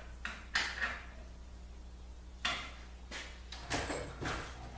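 Steel C-clamps clacking and clinking against each other and the wood as they are handled and set on glued boards: about six sharp, separate clacks spread over a few seconds.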